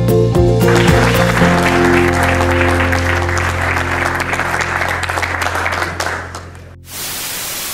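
Background music with a long held low note under audience applause, both fading out about six and a half seconds in. Near the end a steady hiss of static.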